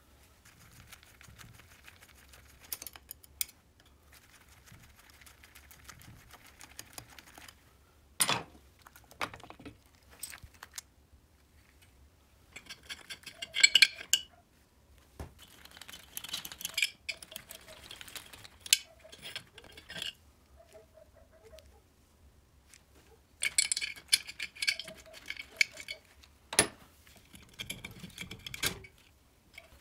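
Metal parts of a moped engine being handled and taken apart by hand: scattered clicks and knocks, with a few short bursts of rattling clinks as the cylinder and head are worked loose from the crankcase.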